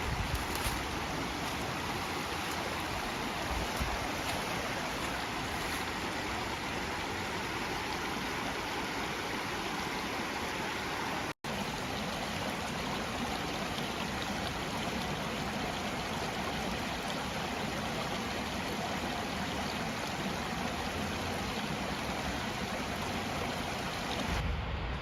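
Stream water running steadily over a shallow riverbed: an even, continuous rushing, with a brief cut to silence about eleven seconds in.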